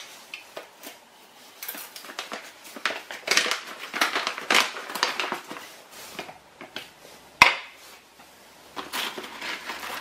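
Crinkling and rustling of a bag of coffee beans being handled and opened, with one sharp plastic click about seven seconds in as the blade grinder's lid is pulled off.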